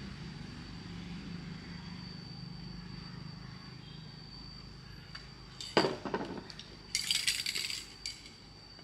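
Sharp metallic clinks followed by a short clatter of small hard parts knocking together, over a low hum at first and a steady high whine.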